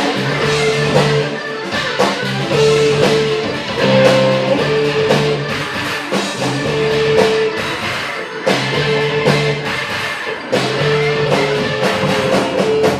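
Live rock band playing a riff on electric guitar and drum kit, with the phrase repeating about every two and a half seconds over steady cymbal hits.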